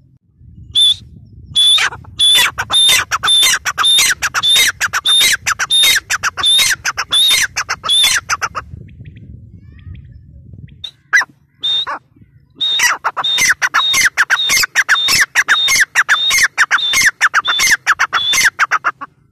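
Female grey francolin calling: a rapid run of short, harsh notes, each dropping in pitch, about three a second. It breaks off for a few seconds in the middle, with only a couple of single notes, then resumes.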